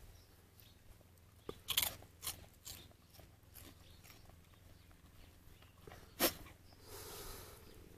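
Akita dog eating, its jaws crunching on something crisp: a quick run of crunches about two seconds in, and one loud crunch about six seconds in.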